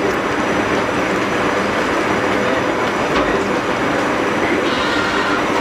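Loud, steady rumbling noise of a passing vehicle, swelling in over the first second and then holding steady.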